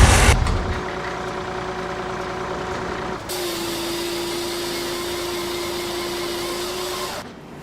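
A heavy vehicle's engine running steadily. A loud rumble cuts off just after the start, and a steady whine joins about three seconds in and stops near the end.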